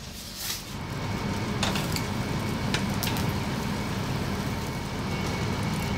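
Chicken wings sizzling in a wire grill basket over charcoal: a steady hiss with a few sharp crackles and pops in the first few seconds, over a low rumble.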